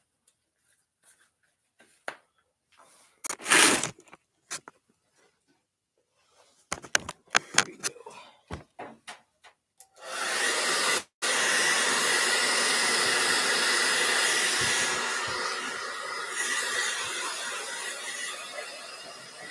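Knocks and handling clatter, then a handheld hair dryer switched on about halfway through and blowing steadily. It cuts out for a moment just after it starts and eases off a little near the end.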